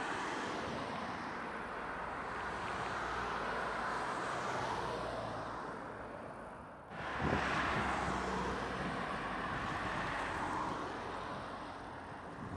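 Road traffic: a car driving by with tyre and engine noise that swells and fades, breaking off suddenly about seven seconds in before another car pass swells up.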